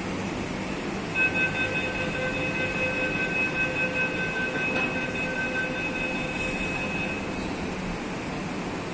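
Nagpur Metro train rolling slowly into the station and braking to a stop: a steady rumble of the train, with a steady high whine that comes in about a second in and fades out near the seven-second mark.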